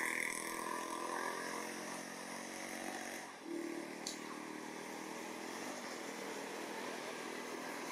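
A motor engine running steadily, like a motorcycle idling or ticking over, with a single short click about four seconds in.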